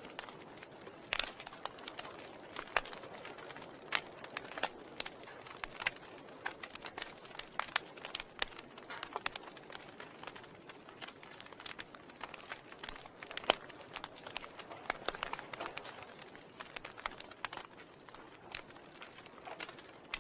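Wood fire burning in a fireplace, crackling: irregular sharp pops and snaps over a soft steady hiss, with one louder pop about two-thirds of the way in.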